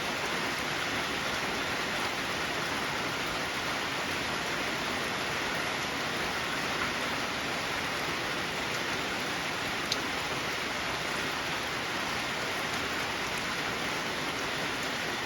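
Steady heavy rain falling and pattering on surfaces, with a single sharp tick about ten seconds in.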